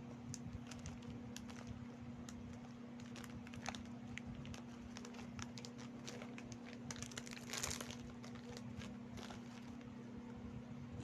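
Kornik (crunchy fried corn nuts) being eaten close to the microphone: faint scattered crunching cracks and crinkling, with a longer rustle about seven and a half seconds in, over a steady low hum.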